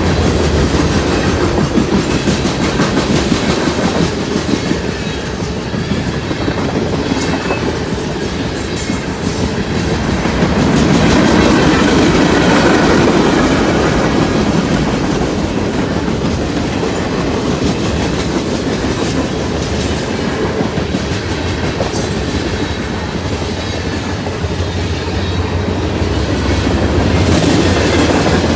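A freight train rolling past at steady speed, the steel wheels of its cars clicking over the rail joints over a continuous rumble. The sound swells a little midway and again near the end.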